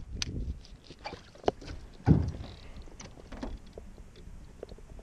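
Handling noise from a baitcasting rod and reel and a small boat while fighting a hooked bass: irregular clicks and knocks, with a louder low thump about two seconds in.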